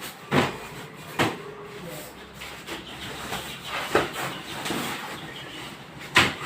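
Four sharp knocks, spaced unevenly, over a low steady background; the last, near the end, is the loudest.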